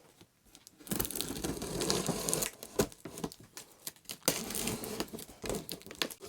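Packaging being handled and unwrapped: uneven crinkling and rustling with scattered clicks and knocks, starting about a second in.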